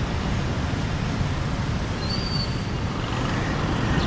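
Steady road traffic noise from passing cars and motorcycles, with a brief high-pitched squeak about two seconds in.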